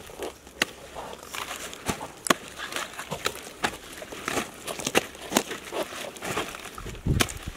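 Repeated sharp knocks and clicks at an uneven pace, about one to two a second, with rustling between them.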